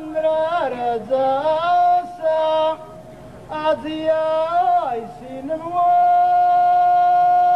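A man singing solo and unaccompanied into a microphone, in an ornamented style with sliding, wavering phrases broken by short pauses, then a long held note near the end.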